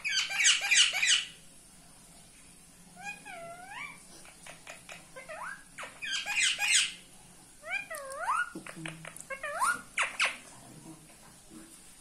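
Indian ringneck parakeets calling, with two loud bursts of harsh, rapid squawking, one at the start and one about six seconds in. Between them come shorter swooping, squeaky chattering calls.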